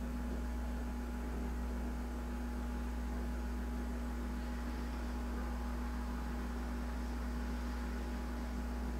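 Steady low hum with a faint hiss underneath, unchanging throughout.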